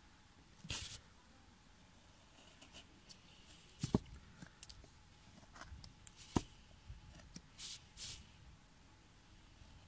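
Small carving knife cutting chips out of a soft wooden blank by hand: scattered short scrapes and clicks, with two sharper clicks about four and six and a half seconds in.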